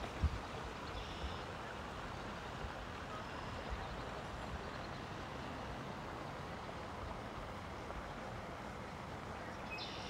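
Steady outdoor background noise by a pond, an even hiss with a few low bumps on the microphone near the start.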